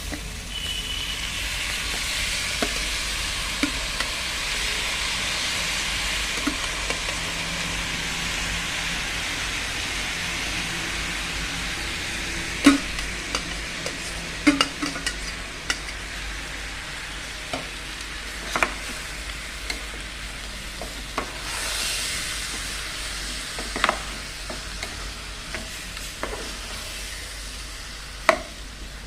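Soaked rice sizzling in hot oil and masala as it is stirred in a metal pot. The sizzle is strongest at first and slowly dies down, with a spatula knocking and scraping against the pot now and then.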